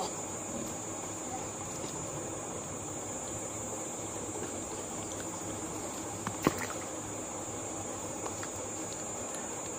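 Steady high-pitched insect drone over a faint background hiss, with one sharp tap, the loudest sound, about two-thirds of the way through.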